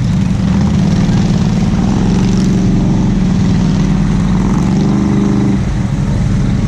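ATV engine running hard under throttle, its note mostly steady. It climbs a little about four to five seconds in, then eases off just before six seconds.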